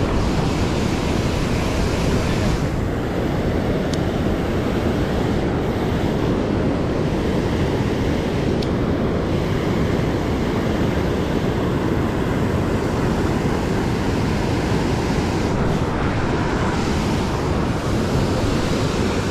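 Loud, steady rush of river water pouring over a concrete weir as whitewater, with the current close around the microphone.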